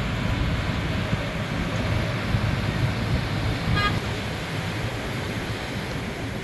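Road traffic noise: a steady rumble of passing vehicles, with one brief high-pitched tone about four seconds in.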